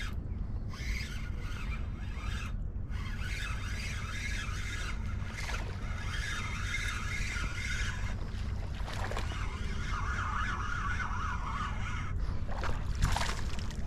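Steady wind rumble on the microphone over the rush of fast river current.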